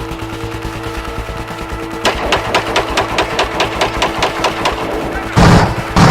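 Airsoft gun firing a rapid string of sharp shots, about five or six a second, over background music, followed near the end by two much louder bursts.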